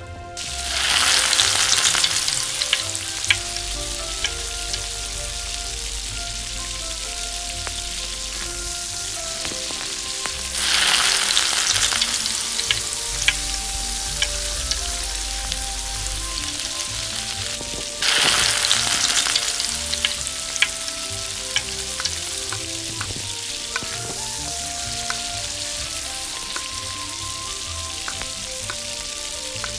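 Battered cauliflower florets deep-frying in hot oil in a miniature clay pot: a steady sizzle with small pops and crackles. The sizzle surges three times, at the start, about eleven seconds in and about eighteen seconds in, as fresh battered pieces are dropped into the oil.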